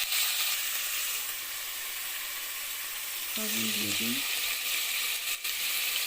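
Biryani ingredients frying in hot oil in a cooking pot, a steady sizzle. A person's voice sounds briefly about halfway through.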